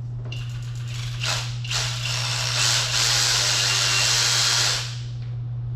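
Cordless electric ratchet with an 8 mm socket on an extension, giving two short blips about a second and a half in, then running steadily for about two seconds as it spins out an intake manifold bolt.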